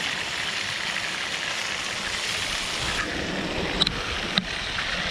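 Fish fillets frying in hot oil, a steady sizzle, with two sharp ticks about four seconds in.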